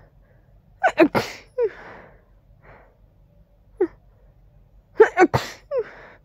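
Two stifled sneezes from a congested person, about four seconds apart, each a quick cluster of sharp, held-back bursts followed by a short voiced breath that falls in pitch.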